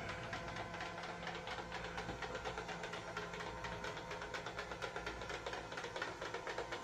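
Small robot sweeper running across a carpet: a steady, quiet whir of its little motor and brushes.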